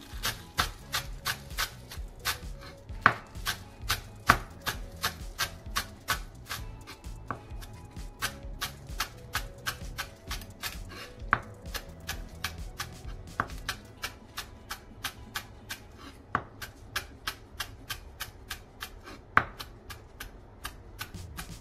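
Chef's knife chopping spring onions on a wooden cutting board: a steady run of crisp knocks, about three a second, with a few louder strikes among them.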